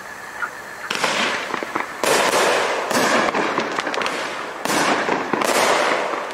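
500-gram consumer fireworks cake firing its shots: about five sharp bursts in quick succession, each followed by a spell of rapid small pops from the breaking stars.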